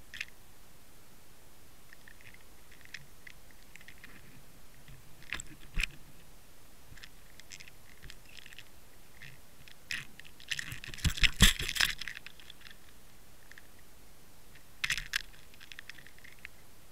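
Underwater clicks and crackles from a camera rig hanging on a fishing line, with a dense run of loud knocks and scrapes about ten to twelve seconds in and a few more clicks near the end.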